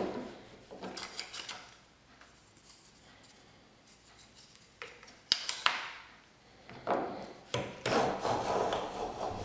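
Block plane shaving a thin wooden strip on a thicknessing sled: a couple of short strokes at the start, a quiet pause with a sharp knock about halfway, then several longer strokes in the second half.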